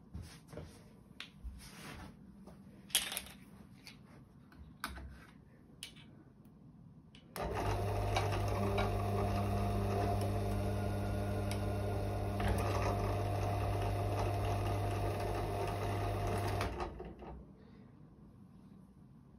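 Benchtop drill press motor switched on about seven seconds in and running at a steady speed with a low hum for about nine seconds, then switched off and spinning down. It is turning a tool that crimps the mouth of a loaded shotgun shell. Before it starts, a few light clicks and knocks.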